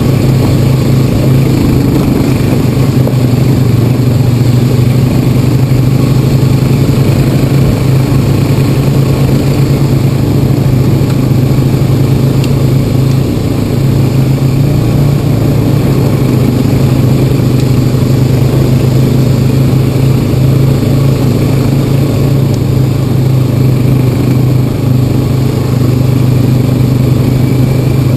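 Honda Rancher 420 ATV's single-cylinder engine running at a steady trail-riding pace, heard from the rider's seat as an even low hum with no change in throttle.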